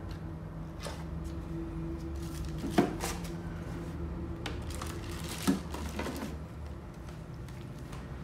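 Hard plastic knocking and rattling as a Ryobi battery charger is handled and set down into a plastic toolbox, with two sharper knocks about three seconds and five and a half seconds in.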